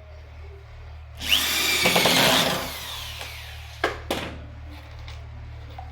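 A power drill runs in one burst of about a second and a half, its whine falling in pitch as it winds down, followed by two sharp knocks.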